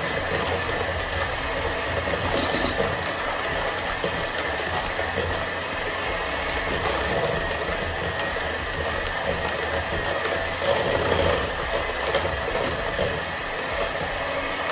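Electric hand mixer running steadily with a constant whine, its beaters creaming soft butter and sugar in a stainless steel bowl.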